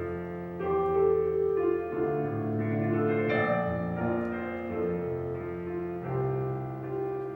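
Piano playing chords between verses of a worship song, with no singing.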